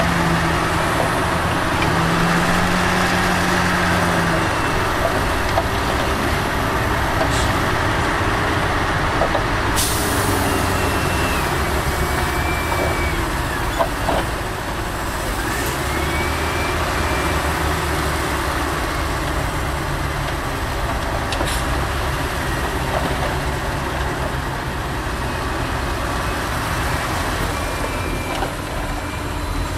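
Heavy diesel earthmoving machinery (dump trucks and a wheel loader) running steadily, with one short sharp noise about ten seconds in.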